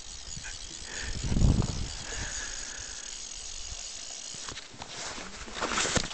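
Fly reel's click-and-pawl drag ratcheting steadily as a hooked fish pulls on the line. A low thump comes about a second and a half in.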